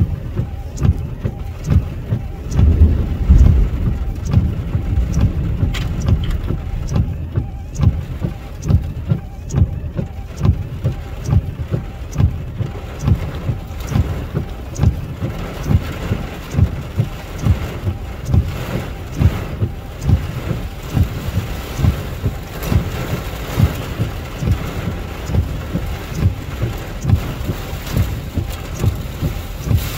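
Rain and road noise heard from inside a car driving through a heavy storm, with steady low thumps about twice a second. A louder low rumble comes about three seconds in.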